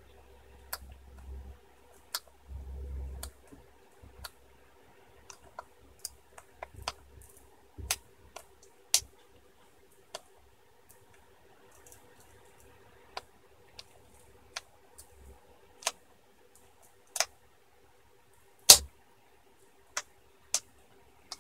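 Scattered small clicks and ticks of fingers working at a laptop LCD panel, peeling back the tape that holds down the display cable connector, with a few soft thumps in the first few seconds and one sharper, louder click late on.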